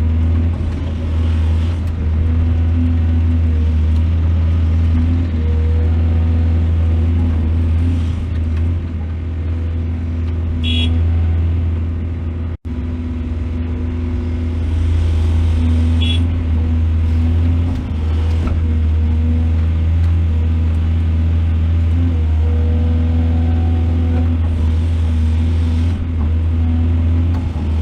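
Heavy earthmoving machinery's diesel engine running steadily with a deep hum. Two short high clinks come through, one before and one after a brief cut in the sound near the middle.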